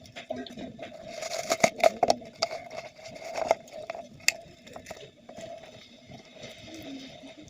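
Handling noises from unboxing a wristwatch: scattered clicks and scraping from the packaging and the watch, busiest between about one and two and a half seconds in, with a sharp click a little after four seconds. A faint steady hum lies underneath.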